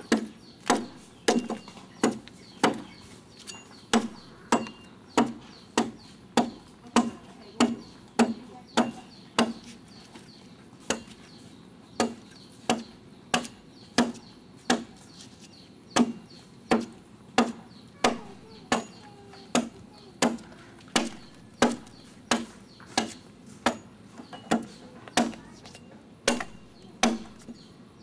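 Hand adze chopping into the wood of a dugout canoe hull, hollowing it out: a steady run of sharp strokes, about three every two seconds, with a short pause about ten seconds in.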